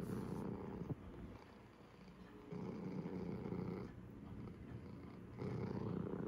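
Orange long-haired house cat purring right at the microphone: a low rumble that swells for about a second and a half, eases, and swells again, three times.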